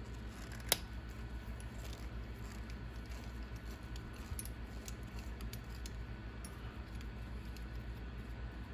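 Light clinks and ticks of small metal parts and tools being handled during disassembly of an RC car's steering, with one sharp click about a second in, over a steady low hum.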